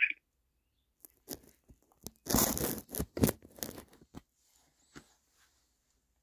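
Rustling and scraping handling noise of a smartphone being moved against hair and fingers, in a series of short bursts. The loudest comes about two and a half seconds in, with a few smaller scrapes and clicks after it.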